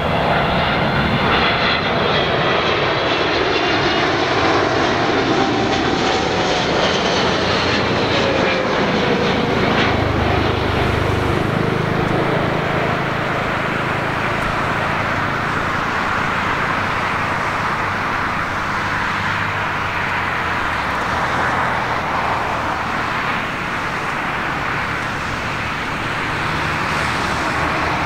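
Boeing 777-200ER's Pratt & Whitney PW4000-series turbofans on landing approach. A whining engine tone falls in pitch over the first several seconds as the jet passes close by, over a steady broad jet roar that carries on through touchdown and rollout.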